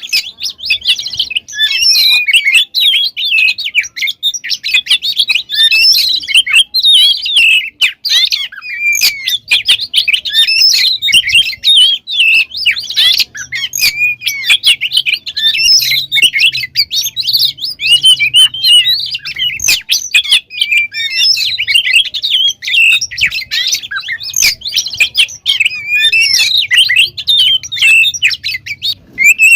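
Oriental magpie-robin (kacer) singing vigorously and without pause: a rapid, ever-changing stream of high chirps, trills and whistled phrases.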